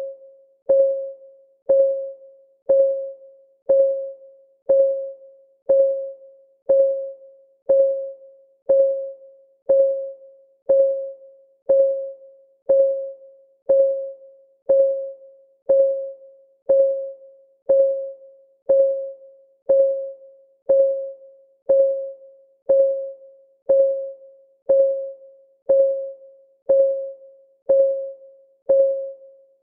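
Countdown timer's clock-tick sound effect: a sharp pitched tick, one per second, evenly spaced and each one the same, with each tick ringing briefly and dying away.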